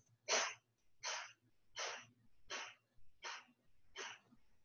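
Kapalabhati breathing: short, forceful exhalations through the nose at an even pace, about six in a row, one every three-quarters of a second or so, the first the loudest.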